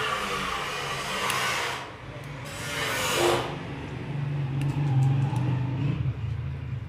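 Background vehicle noise: one vehicle passes with a rush that falls in pitch about three seconds in, followed by a steady low engine hum.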